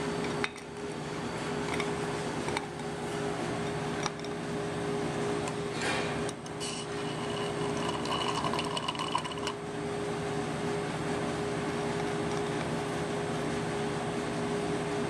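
A steady mechanical hum and whir with a constant low tone, and a few faint light clicks in the first half.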